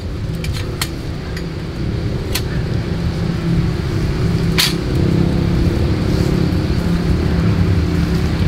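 A steady low motor hum, engine-like, that grows a little louder about two seconds in. Over it come a handful of sharp metallic clinks from a bundle of swords being handled, spread over the first five seconds.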